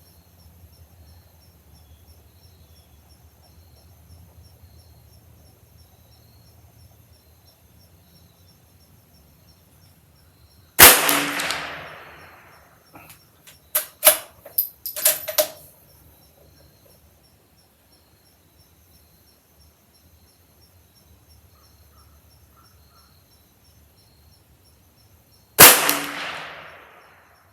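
Two shots from a Ruger Precision Rimfire .22 LR bolt-action rifle, about fifteen seconds apart, each a sharp crack with a short fading tail. A couple of seconds after the first shot comes a quick run of metallic clicks as the bolt is worked to chamber the next round.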